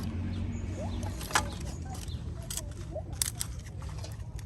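Iron fire-pit parts clinking as they are handled: a few sharp metal clinks, the loudest about a second and a half in, over a steady low hum.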